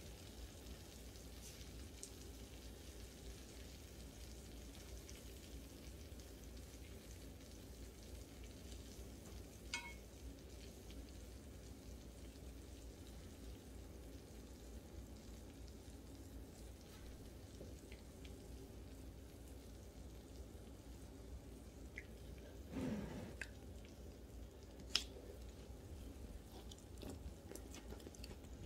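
Faint sizzling and light popping of melted mozzarella bubbling in a hot cast-iron skillet, over a low steady hum. Near the end there is a brief louder rustle, then a single sharp click.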